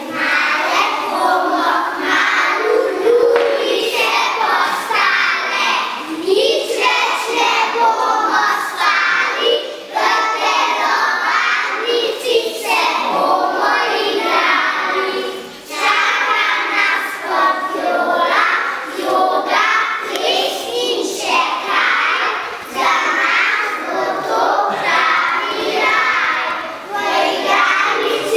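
A group of young children singing a song together in Slovene, in phrases broken by a few short pauses.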